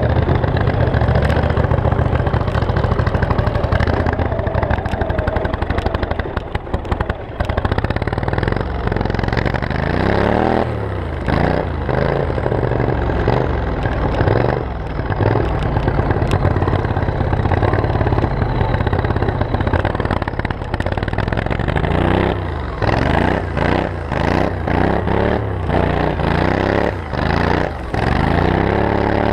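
Turbocharged 26 hp Briggs & Stratton 724cc V-twin engine driving a lawn mower, running steadily, then revving up and down again and again from about ten seconds in, most often near the end.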